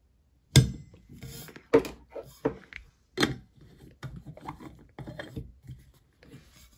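Lids of a stainless steel water bottle being handled: a few sharp knocks and clicks, the loudest about half a second in, as the steel screw cap comes off and a plastic straw lid is put on, then fainter small clicks as the straw lid is screwed down.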